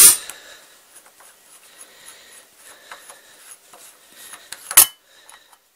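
Collet nut being unscrewed on a milling machine spindle: faint metal scraping and small ticks, with a sharp metallic clack at the start and another near the end as the nut releases in two stages.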